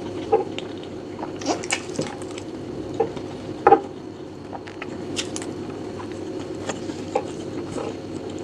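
Close-miked chewing of rice and chicken: scattered wet mouth clicks and smacks over a steady low hum, loudest a little under four seconds in.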